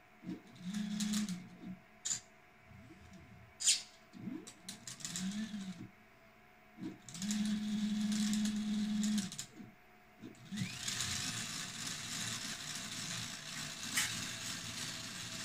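Enraged Rabbit Carrot Feeder filament changer on a 3D printer running a filament change: its stepper motors whine in a series of short moves that ramp up and down in pitch, the longest about two seconds, with sharp clicks between them. After about ten seconds a steadier mechanical whirring takes over, opening with a brief rising whine.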